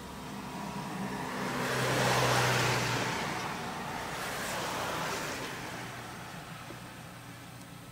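A road vehicle passing by, its noise building to a peak about two seconds in, then slowly fading away.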